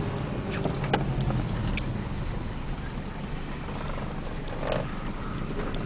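Car engine and road noise heard from inside the cabin while driving slowly: a steady low hum, with a few light clicks in the first two seconds.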